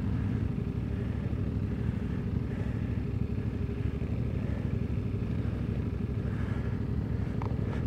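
CFMOTO 450MT's parallel-twin engine running steadily under way on a trail ride, holding an even pace without revving up or down.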